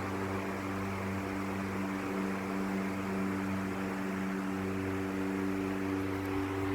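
Vintage Toshiba CT-40T ceiling fan with 40 cm blades running on its fixed high setting: a steady electric-motor hum under an even rush of moving air.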